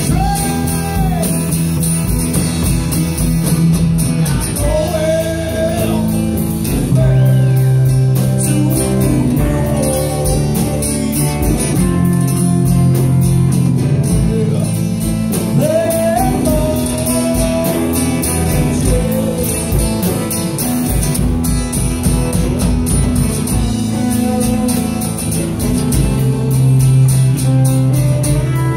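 Live band playing amplified: electric guitars, bass and a drum kit, with a voice singing at times.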